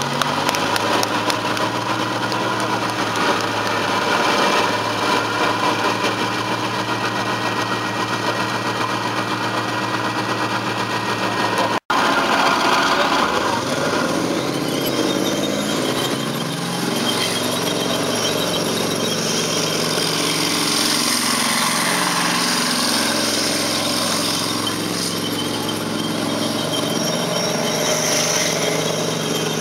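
Main battle tank engines running, a deep steady drone. A brief cut in the audio comes about 12 seconds in. After it the engine note rises and shifts, with a high whine over it as the tanks manoeuvre.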